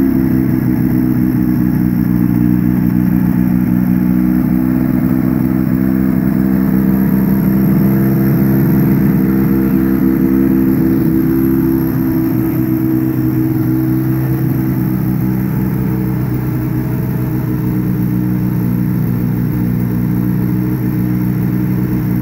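Quicksilver ultralight aircraft engine running steadily at an even speed. It gets a little quieter about halfway through.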